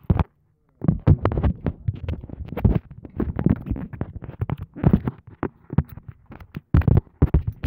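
Loud, irregular rustling, scraping and thumping of hands handling a phone against its microphone, with a brief gap of silence about half a second in.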